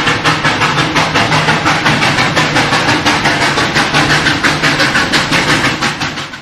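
A machine running steadily, with a low hum and a rapid regular pulse of about six beats a second, fading out near the end.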